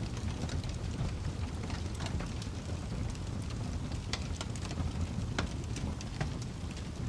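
Wood fire burning in a fireplace: a steady low rumble of flames with scattered sharp crackles and pops from the burning wood.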